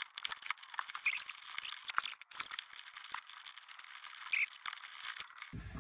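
Hands working cable ring terminals and a hex key on a battery shunt's terminal studs: an irregular string of small clicks, clinks and rattles.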